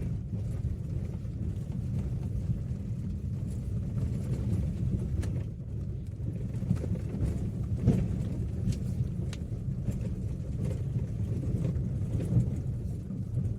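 Maruti Swift driving over a rough road, heard inside the cabin: a steady low rumble of tyres and engine with a few faint knocks. There is no rattling from the steering column, which has just been repaired.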